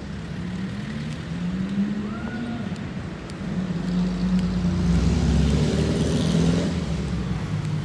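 Street traffic: a motor vehicle's engine running close by, swelling louder about halfway through and easing off near the end.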